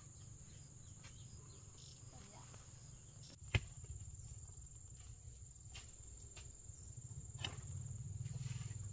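Insects trilling steadily at a high pitch, with a sharp click about three and a half seconds in and a couple of fainter knocks later.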